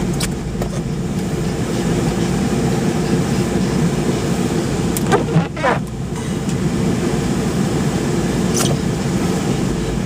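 Car engine and road noise heard from inside the cabin while driving, a steady low rumble, with a short squeak about five seconds in.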